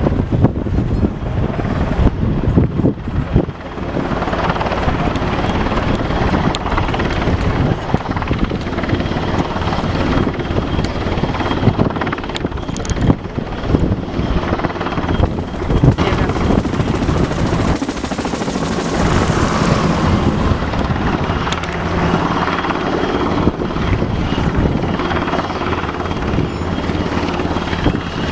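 Aircraft engine and rotor or propeller noise running loud and continuous, with wind buffeting the microphone.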